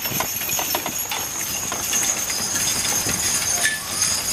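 Hooves of a hitch of draft horses clip-clopping on turf as they pull a wooden wagon, with scattered clicks and a faint high jingle of harness.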